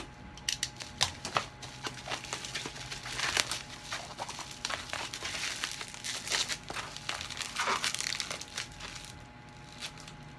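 Plastic packaging crinkling and rustling as it is handled and torn open, in a run of irregular crackles, busiest about three seconds in and again toward the last third.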